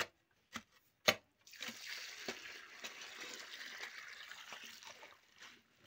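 Three short knocks of a hoe blade striking the loose soil, then water poured from a pot onto the earth of a foundation trench, splashing steadily for about four seconds. The water is poured to soak the soil and settle it.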